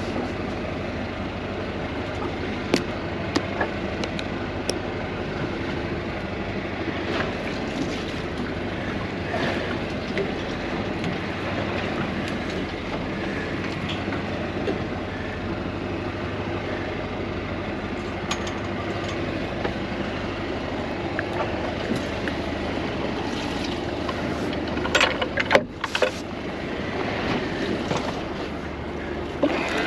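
Boat motor running steadily under way, with water and wind noise and a few sharp knocks, the loudest couple about 25 seconds in.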